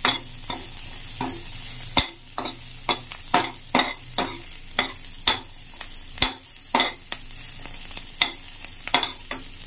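Sliced onions and cumin seeds sizzling in oil in a steel kadhai, with a slotted metal spatula scraping and knocking against the pan as they are stirred, about two to three strokes a second over the steady frying hiss.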